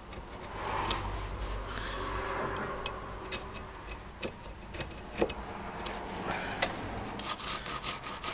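Hacksaw blade scraping and clicking in the slots between the copper commutator segments of a Bosch starter motor armature, clearing out dirt to reduce arcing across the segments. Near the end it gives way to fast back-and-forth scrubbing as a nylon scouring pad cleans oxidation off the commutator.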